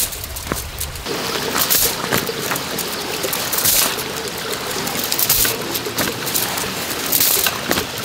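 Roll of chain-link wire mesh being handled and unrolled, its wire links rattling and clinking against each other, with louder scraping rustles about every two seconds.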